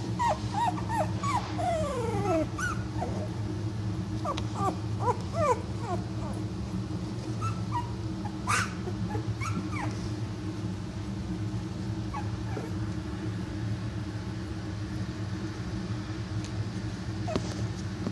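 Two-week-old boxer puppies whimpering and squeaking: a flurry of short high cries through the first six seconds, then a few more around the middle, over a steady low hum.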